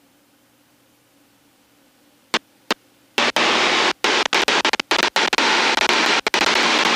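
Cockpit audio of an Extra 300 aerobatic plane: near silence, then two sharp clicks a few tenths of a second apart, then loud hissing engine and wind noise that cuts in about halfway through and keeps breaking off in brief dropouts, like an intercom microphone opening and closing.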